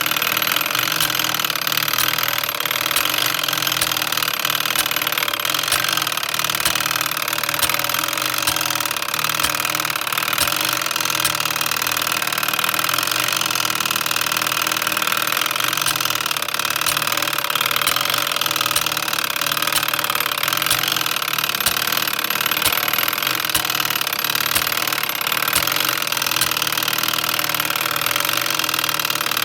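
Samson No. 50 coded fire alarm pull station running its spring-wound code mechanism after being pulled: a steady mechanical whir with faint clicks at a regular pace as the code wheel turns.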